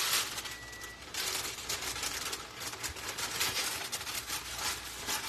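Parchment paper crinkling and rustling as it is handled, a crackly noise that grows louder about a second in.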